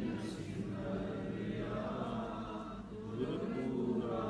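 A Sikh congregation singing a line of Gurbani together in unison, soft and held back rather than sung out freely.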